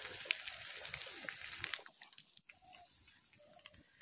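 A whole marinated chicken deep-frying in hot oil in a kadhai: the oil sizzles with a dense hiss and many small crackles and pops. A bit over two seconds in the sizzle cuts off abruptly to a much fainter background.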